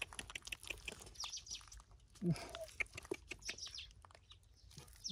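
Faint wet clicks and squelches of gloved hands picking fish out of soft mud, with a few high, falling chirps in the background.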